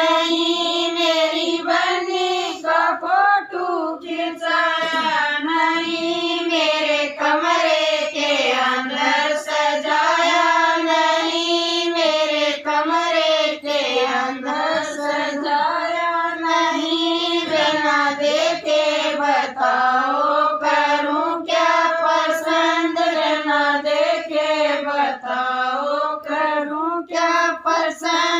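A group of women singing a Haryanvi sangeet folk song together in one continuous melody.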